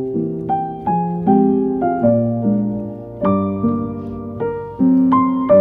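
Background piano music: a melody over chords, a new note or chord struck every half second or so, each ringing and fading.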